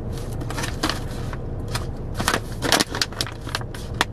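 Plastic snack bag crinkling in the hands, a run of irregular crackles, over a low steady hum.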